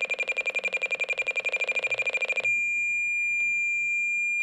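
President McKinley II CB radio's built-in automatic SWR meter beeping rapidly, about ten high beeps a second, then going over to one solid steady tone about two and a half seconds in. The solid tone signals a matched antenna, an SWR of 1.0.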